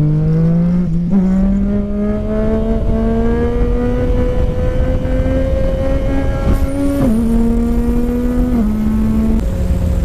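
Motorcycle engine pulled hard under acceleration, its pitch climbing with a gear change about a second in, then rising slowly for several seconds before stepping down twice near the end. Wind rush runs underneath.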